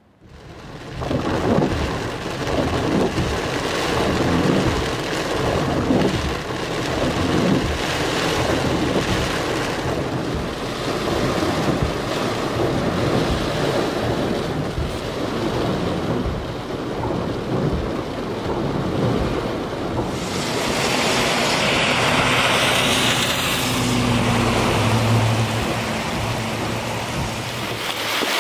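Hurricane wind buffeting the microphone in gusts, over surf and heavy rain. About 20 seconds in it turns into a steadier hiss of heavy rain, with a low hum for a few seconds near the end.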